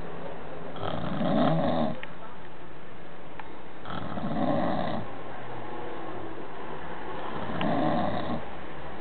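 Snoring: three snores, each about a second long and about three and a half seconds apart, the breathing between them lost under steady background noise.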